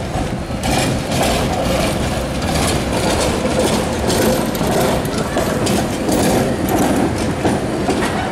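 A tram passing close by across a track junction, its wheels rolling over the rail crossings with a steady rumble and a run of irregular clicks and knocks. It grows louder just under a second in.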